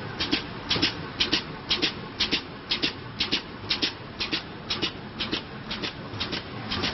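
Stand-up pouch and zipper bag making machine running in its regular cycle: a pair of short, sharp hissing clicks about twice a second over a steady mechanical hum, with lighter low ticks in between.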